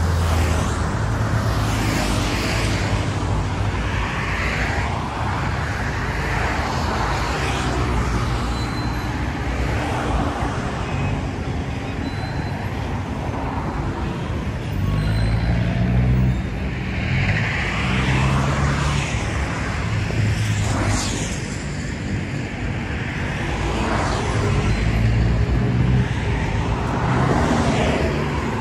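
Road traffic: a steady engine rumble with vehicles passing one after another every few seconds.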